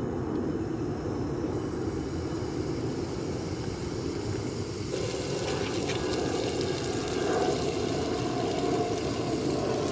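Meat sizzling in a frying pan over a lit camping gas stove, with the burner's steady rushing noise underneath. The sizzle grows as more pieces are laid in, stepping up about five seconds in.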